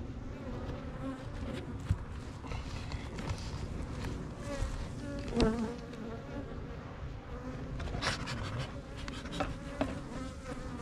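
Honey bees buzzing around an open hive, many wingbeats overlapping in a steady hum, with a sharp knock about five seconds in.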